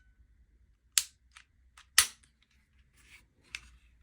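Glock 25 pistol's action being worked dry: sharp metallic clicks of the slide and trigger. The two loudest come about a second apart, with lighter clicks between and after.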